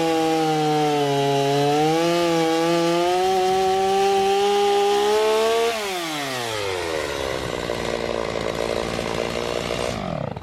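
Chainsaw running at full throttle, cutting through a large round hay bale. A little over halfway through the throttle is let off: the pitch falls sharply and the saw idles for a few seconds, then it shuts off near the end.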